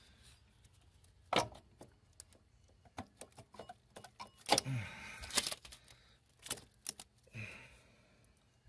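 Scattered metal clicks and small rattles of pliers and engine parts being handled, with a cluster of louder knocks about halfway through.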